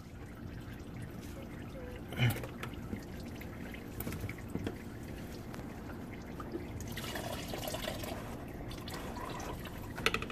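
Used motor oil and engine flush draining from the crankcase, trickling and dripping into a metal drain bucket, with a knock about two seconds in, a heavier pour for a couple of seconds after the middle, and a few clicks near the end as the oil filter is worked loose.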